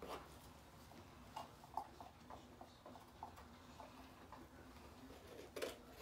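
Quiet handling sounds: a string of small, faint taps, with a brief louder rustle at the start and another near the end.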